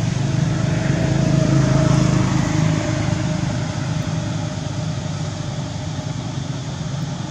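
A motor engine running steadily: a low drone that eases off somewhat after about three seconds.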